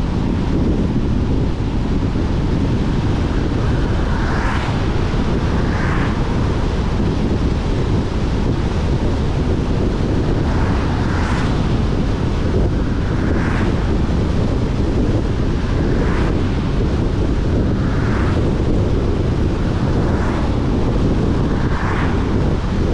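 Car driving on a wet road: steady low rumble of tyres and road noise, with a soft swish about every two seconds.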